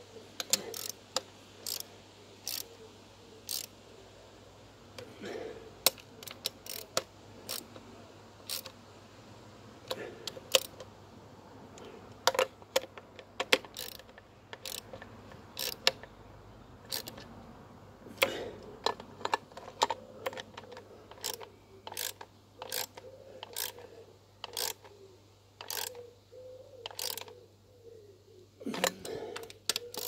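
Hand socket ratchet clicking in short, irregular runs of strokes as bolts on the engine are turned.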